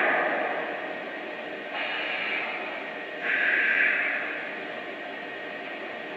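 Model Union Pacific Big Boy steam locomotive's sound effects: a steady hiss, with two louder bursts of hissing about two and three and a half seconds in.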